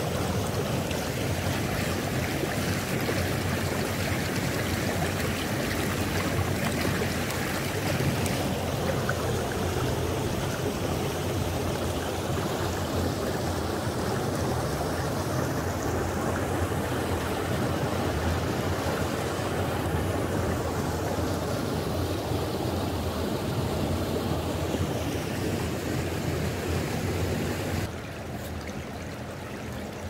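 Clear mountain stream running over rocks and a pebble bed, with a small cascade spilling into a pool: a steady rush of water that turns quieter and duller near the end.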